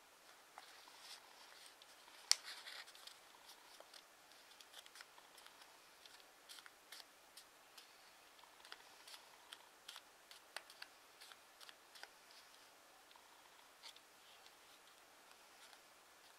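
Faint crackling and rustling of a sheet of origami paper (TANT paper) being folded and creased by hand, a scatter of small crisp ticks with one louder crackle a little over two seconds in.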